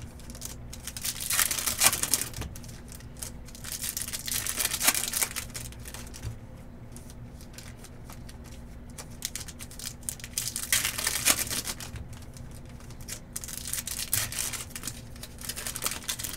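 Baseball card packs being opened and handled: wrappers crinkling and tearing in bursts, with quick clicking as cards are flipped through one after another.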